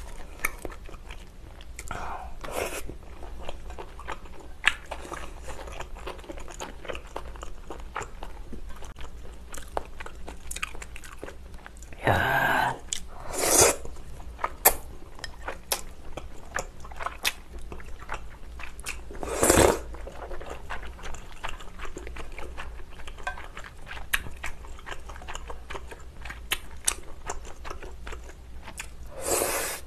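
Close-miked chewing of glass noodles and seafood, with many small wet clicks. There are a few louder slurps: two about halfway through, one a little later and one near the end.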